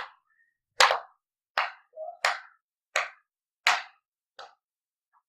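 A run of seven sharp slaps, evenly paced at about one every 0.7 seconds, the last one fainter: someone repeatedly hitting something that won't go.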